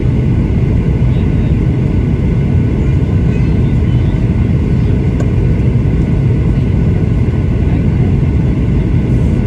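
Steady cabin rumble of a Boeing 737-800 on approach, heard inside the cabin from a seat over the wing: the CFM56-7B turbofan engine and rushing airflow.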